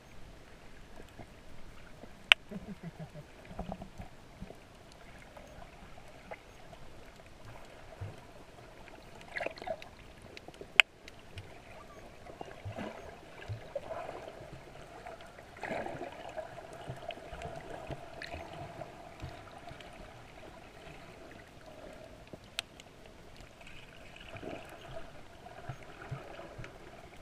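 Muffled underwater sound picked up through a camera's waterproof housing: a low steady hum with soft gurgles, broken by a few sharp clicks, two of them loud.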